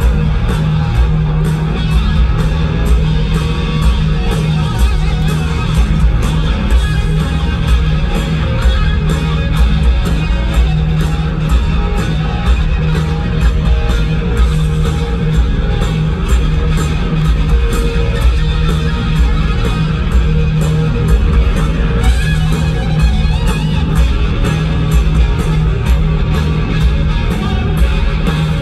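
Live rock band playing an instrumental stretch with no singing: electric guitars and bass guitar over drums keeping a steady beat.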